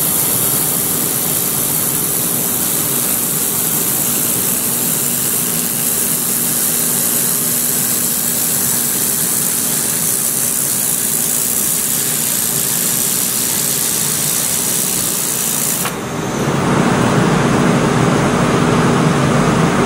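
Handheld fiber laser welder running a seam along a metal corner joint: a steady high hiss over a steady machine hum. The hiss cuts off suddenly about sixteen seconds in as the weld stops, leaving the hum.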